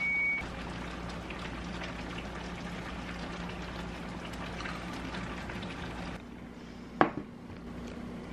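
The last note of a washing machine's end-of-cycle beeping tune, then a steady hiss with a low hum. Near the end comes a single sharp knock.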